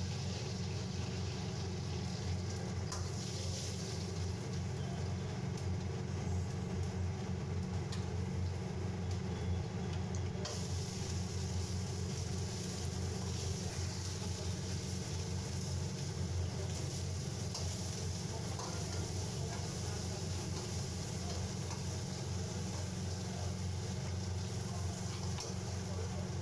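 Thick Schezwan sauce bubbling and sizzling at a boil in an iron pan, stirred with a metal ladle, over a steady low hum. The hiss grows brighter about ten seconds in.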